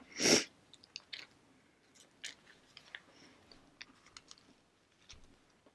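A bite into a buttered, toasted English muffin about a quarter second in, then chewing with small wet mouth clicks.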